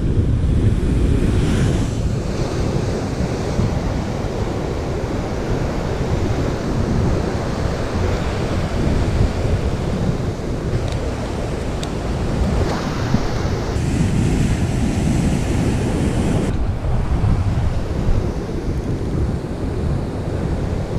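Wind buffeting the microphone over surf breaking on the beach.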